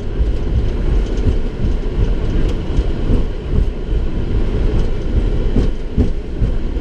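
Cockpit noise of a Boeing 737-700 rolling slowly down the runway at the end of its landing roll: a steady low rumble from the landing gear on the runway surface, with irregular bumps and knocks.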